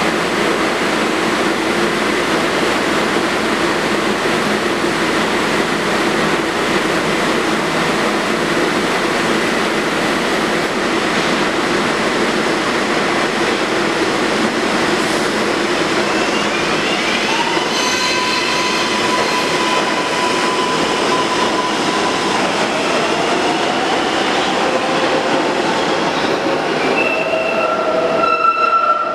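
A New York City Subway R142A train runs through the station with a steady loud rumble of wheels on rail. In the second half, whining tones from the electric drive come in and glide upward in pitch, as the train gathers speed.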